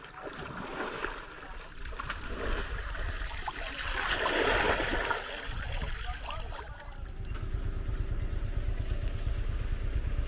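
Splashing of river water as a man wades, dunks and throws water over himself in a shallow river, with the loudest splash about four seconds in. A steady low rumble runs underneath.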